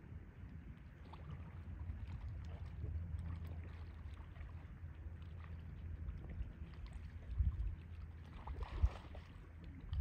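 Horses wading through a river: water sloshing and splashing around their legs over a steady low wind rumble on the microphone, with a couple of heavier splashing thumps in the last few seconds.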